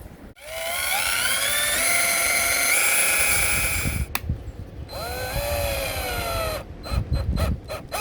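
Power drill spinning up with a rising whine and running for about three and a half seconds before stopping. A second, shorter run follows whose pitch sags as it goes, then several quick trigger bursts near the end.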